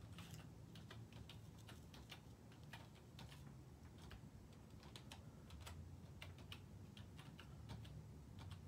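Faint, irregular typing on a computer keyboard, a few key clicks a second.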